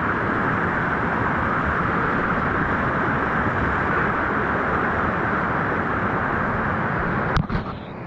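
Steady rushing of river water through a canyon, an even roar with no rhythm, cut short by a sharp click near the end after which it drops quieter.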